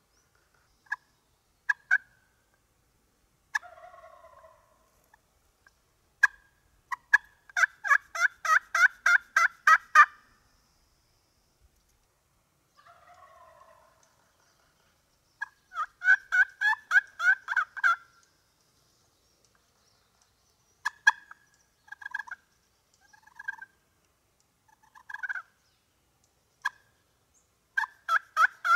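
Wild turkeys calling: several fast strings of sharp yelps at about eight notes a second, with two short rattling gobbles, one about four seconds in and one near the middle.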